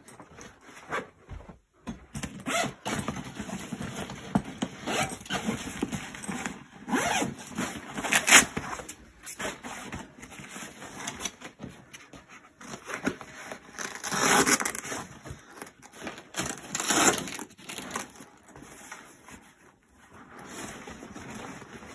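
Zips of a padded nylon gun bag being pulled open, with the rustle and scrape of the fabric as the flap is folded back and the gun is handled inside: a run of uneven rasping strokes, the loudest about 8 s, 14 s and 17 s in.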